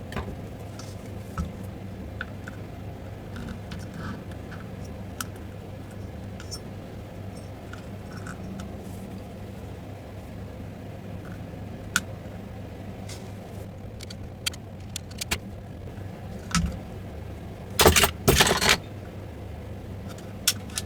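Scattered light clicks and taps of small metal tools and parts being handled, over a steady low hum, with a short burst of loud metallic jangling near the end.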